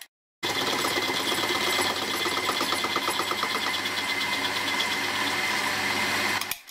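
Milling machine running with a 5/8-inch end mill cutting into a metal plate clamped in a vise, a steady mechanical sound with a fast even rhythm for a moment about halfway through. It stops abruptly near the end.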